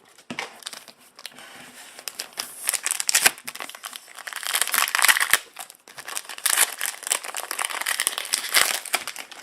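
Foil wrapper of a Pokémon TCG booster pack crinkling continuously as it is torn open and handled, with many small crackles and clicks.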